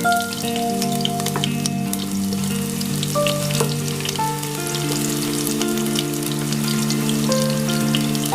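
Food frying in hot oil in a pan, a steady crackling sizzle, over background music with long held notes.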